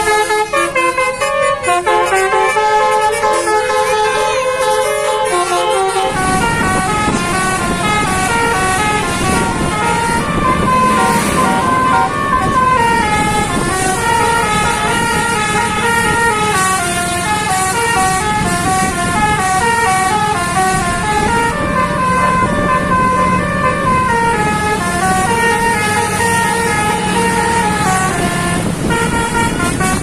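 Basuri musical air horns on an Indonesian tour bus playing a quick stepping melody of short notes (telolet horn). About six seconds in, a steady engine hum and road noise join under the horns.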